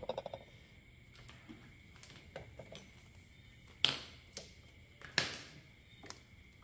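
XLR audio cables being handled and moved around the back of an equipment rack: scattered light clicks and taps, with two louder clacks about four and five seconds in.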